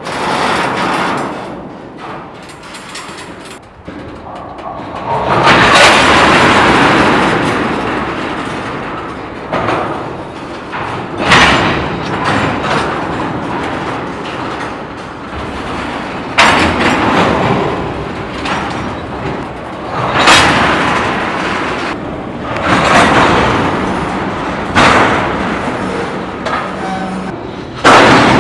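Couplers of a slowly moving freight train of tank cars banging and booming as the slack runs in and out between cars: a series of loud sudden bangs every few seconds, each ringing off, over the train's steady rumble and wheel noise.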